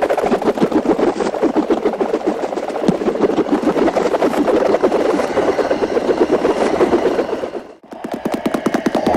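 Dance performance soundtrack: a steady, fast-pulsing, machine-like throb that drops out for a moment near the end, then resumes.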